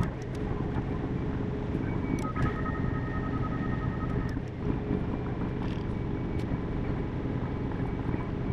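CAT D6 bulldozer's diesel engine and drivetrain running steadily while the dozer works, heard from inside the cab. A high steady whine comes in about two seconds in and stops about two seconds later.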